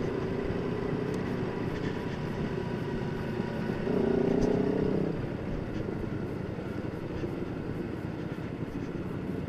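Triumph motorcycle engine running steadily under way, growing louder for about a second around four seconds in.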